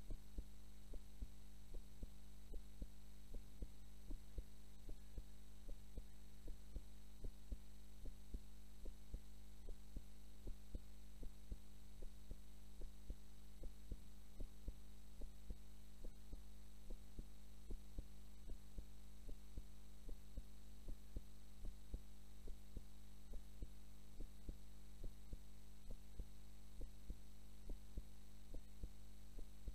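A woman's heartbeat recorded close against the chest, beating steadily and evenly while she sleeps, over a constant low electrical hum.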